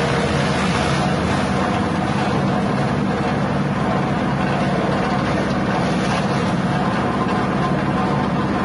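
Grass chopper driven by a small 6.5 hp petrol engine, running steadily at working speed as elephant grass stalks are fed into its blades.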